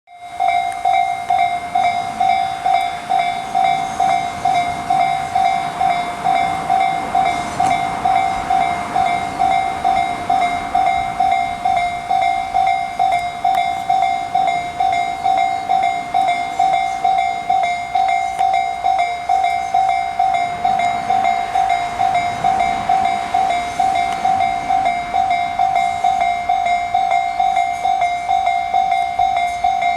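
Japanese railway level-crossing electronic bell ringing steadily at about two strikes a second, a single clear tone of the Tobu Tōjō Line type, while a Tobu 70000-series electric train passes with a low running rumble that rises and falls under it.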